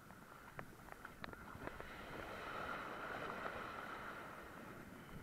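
Shallow surf washing and swirling around a plastic kayak hull, with scattered small splashes and taps. The wash swells a little about halfway through.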